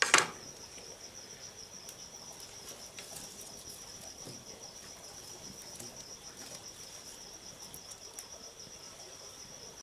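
Crickets trilling steadily in a rapid, high, pulsing chirr. There is one loud sharp crack right at the start, and faint scattered crackles, typical of a campfire.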